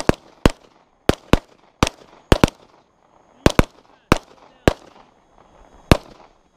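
Pistol fire from several shooters: about a dozen sharp shots in an uneven string, some in quick doubles, each with a short echo.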